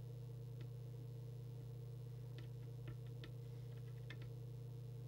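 Small, sharp clicks of an alignment tool working in the ferrite slug of a transmit coil on a CB radio's circuit board: about half a dozen in a cluster just under halfway through, while the coil is peaked for transmit power. A steady low electrical hum underlies them throughout.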